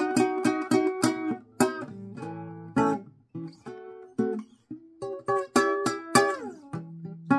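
Small-bodied acoustic guitar fingerpicked in a blues style. A quick run of repeated plucked notes gives way to sparser notes over held low tones, and about six seconds in a note slides down in pitch.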